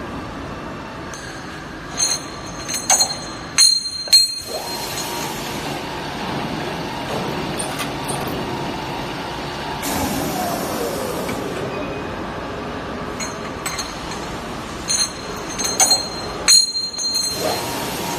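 CNC double-end pipe chamfering machine running with a steady mechanical hum. Twice, about thirteen seconds apart, a cluster of metal clinks with bright ringing comes as metal pipes knock against each other and the feeder rails. A falling whine comes about halfway through.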